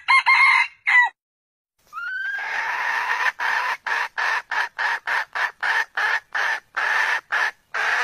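Red junglefowl (wild chicken) calling: a short call, then after a pause a rising call that breaks into a fast run of repeated clucking notes, roughly three to four a second.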